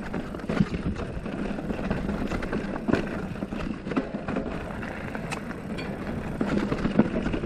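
Felt Decree 3 full-suspension mountain bike riding over a loose, rocky dirt trail: tyres crunching on gravel and stones, with irregular knocks and rattles from the bike as it bumps over rocks.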